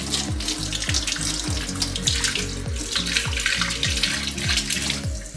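Kitchen tap running onto strawberries being rinsed by hand, water splashing into a stainless steel sink. Background music with a steady beat plays underneath.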